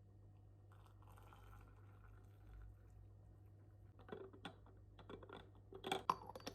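Faint low hum, then a run of irregular crunching clicks starting about four seconds in, with the loudest cluster near six seconds.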